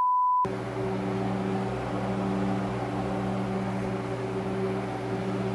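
A steady pure beep tone cuts off about half a second in. It gives way to a steady low machine hum, made of several held tones under a light hiss: the room tone of a space with running ventilation or cooling equipment.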